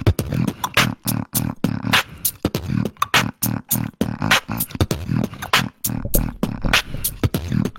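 Human beatboxing: a fast run of sharp kick-, snare- and hi-hat-like mouth hits, about three to four a second, over a low bass sound.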